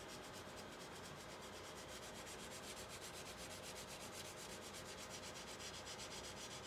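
Faint, steady rubbing of a spatula pressed lightly over a screen-protector film as its adhesive gasket is squeezed down onto the screen.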